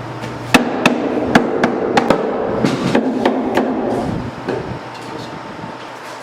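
A quick run of sharp wooden knocks and clacks, about ten in the first four seconds, as clamps and wood parts are knocked together during glue-up assembly. A steady low hum runs underneath.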